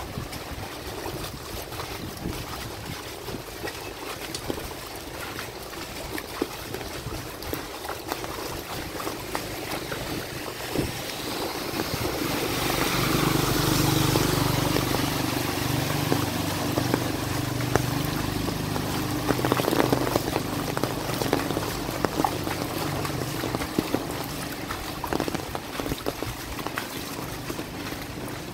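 Rain falling and water running and splashing on a flooded street, with many small drip-like ticks. A motor vehicle passes through the water, its engine hum rising to loudest about halfway through and then slowly fading.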